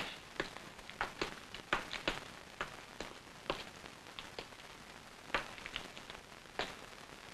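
Footsteps of several people walking on a hard floor: irregular sharp steps that thin out to a few scattered ones after a few seconds.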